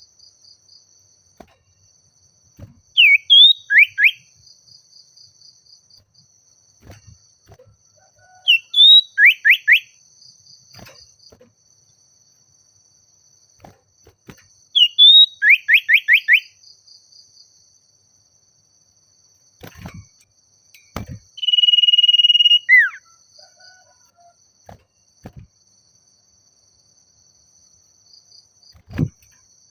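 Common iora (sirtu/cipoh) singing: a short high note followed by four or five quick falling whistles, a phrase repeated about every six seconds. Near the middle comes one long steady whistle ending in a downward slur. A faint, steady high-pitched tone runs underneath.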